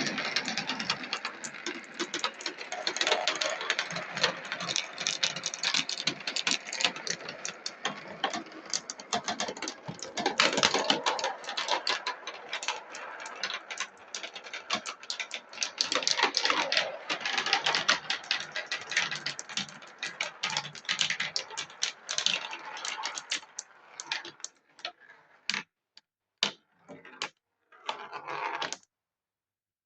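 16 mm glass marbles rolling and clattering down a marble-run track: a dense stream of rapid clicks and rattles that thins to a few separate clicks near the end, then stops.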